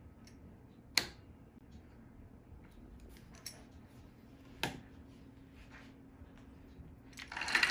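Needle-nose pliers fitting a C-clip onto the spur gear shaft of an RC car: a few sharp metal clicks, one about a second in and a louder one past the middle, with small ticks between. A louder rustle of handling starts near the end.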